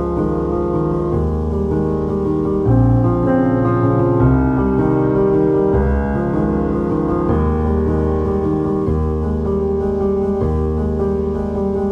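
Background music led by piano, with sustained chords changing every second or two.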